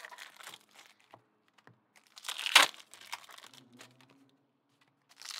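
Trading-card pack wrappers crinkling and being torn open, in short bursts, the loudest about two and a half seconds in.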